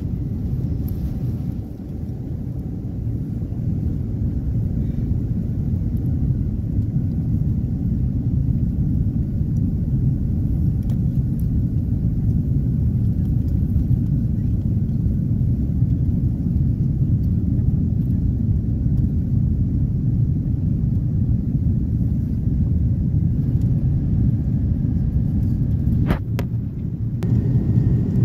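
Cabin noise inside an Airbus A330neo climbing after takeoff: a loud, steady low rumble of its Rolls-Royce Trent 7000 engines and rushing air. A short click near the end.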